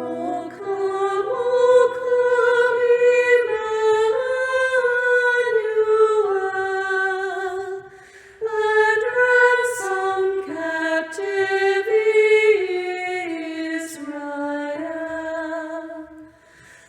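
Female vocal trio singing in harmony, unaccompanied, in slow held notes, with a breath between phrases about eight seconds in and again near the end.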